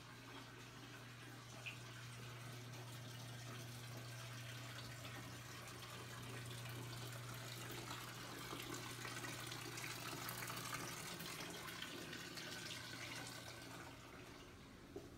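A faint, steady low hum under a soft hiss, with the hum dropping away about eleven seconds in.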